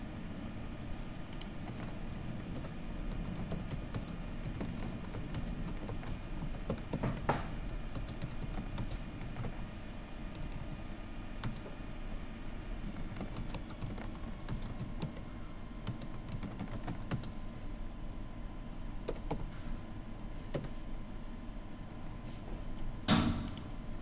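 Typing on a computer keyboard: irregular runs of key clicks, with one louder knock near the end.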